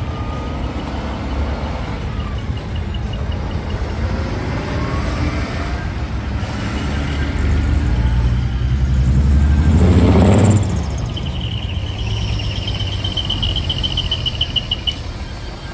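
Decorated heavy trucks driving slowly past, their diesel engines rumbling and growing louder as one passes close, with the sound cutting off suddenly about ten seconds in. Over the last few seconds a high, rapidly pulsing beep sounds.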